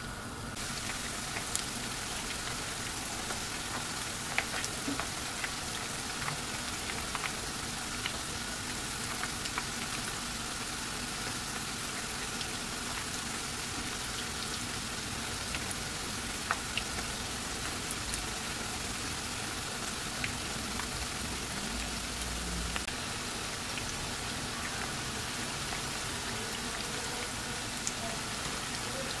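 Batter-coated chicken gizzards frying in hot oil in a pan: a steady sizzling hiss with scattered sharp pops and crackles.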